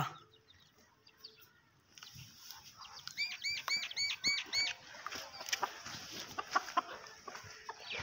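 Chickens: after about two seconds of near silence, a quick run of about seven high chirps, then scattered soft clucks and light clicks.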